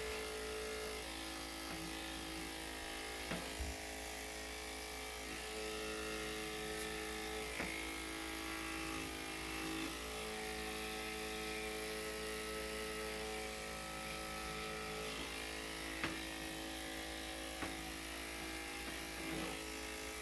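Electric dog grooming clippers running steadily, a hum of several tones that shifts slightly in pitch about halfway through, with a few faint clicks.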